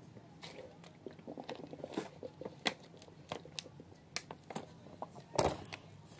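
Irregular close-up crunching and crackling clicks, with a louder crackle about five seconds in.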